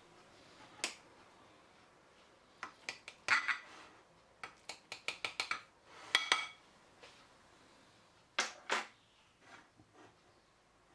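A kitchen utensil clinking and scraping against a glass dish while mashed-potato filling is cut into portions in it. It comes as scattered sharp taps, with a quick patter of them in the middle and two louder pairs later on.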